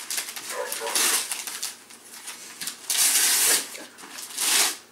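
Gift wrapping paper being torn and crinkled as a present is unwrapped, in several rustling bursts: a short one about a second in, a longer one around three seconds, and another near the end.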